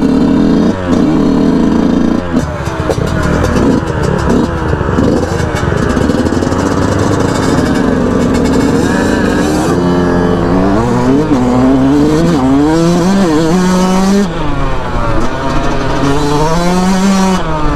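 Dirt bike engines revving hard. The pitch holds steady for about two seconds, then climbs and drops again and again as the bikes run up through the gears, and later more than one engine is heard at once.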